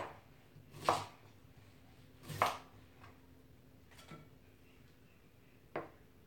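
Kitchen knife cutting cauliflower on a cutting board: five separate knocks of the blade meeting the board at irregular intervals, the first three loudest.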